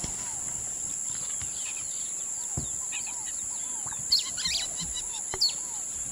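Rainforest ambience: many birds chirping and calling over a steady, high-pitched insect drone.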